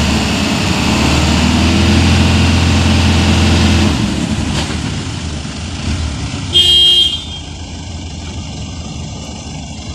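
Diesel engines of a loaded Hino 300 dump truck stuck in mud and the Landini tractor helping it out, working hard, then easing off about four seconds in. A short horn toot comes about halfway through, and the engines then run more quietly.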